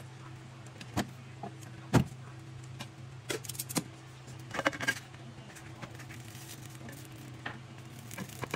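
Metal kitchen tongs clicking and knocking against a nonstick frying pan: a handful of sharp clinks and taps, the loudest about two seconds in and a quick cluster near the middle, over a steady low hum.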